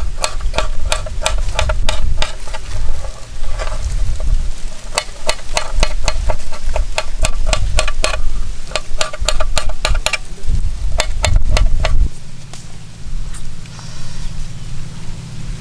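Knife chopping soft tender coconut flesh into small pieces, the blade striking the cutting surface in quick regular chops about three a second. There is a short pause about four seconds in, and the chopping stops about twelve seconds in, leaving a low steady hum.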